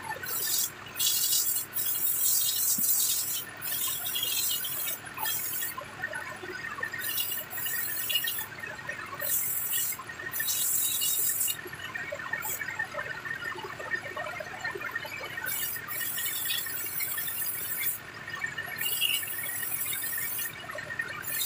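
Hand-held spray gun on a hose hissing in short bursts of a second or so, triggered on and off about a dozen times with a longer pause midway, as it is aimed at a stripped printer mechanism.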